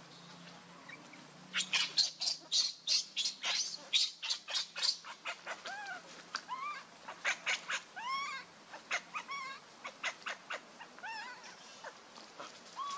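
Infant macaque screaming: a rapid run of short, shrill squeals, several a second, starting about a second and a half in, mixed with arched cries that rise and fall. These are an infant's distress cries.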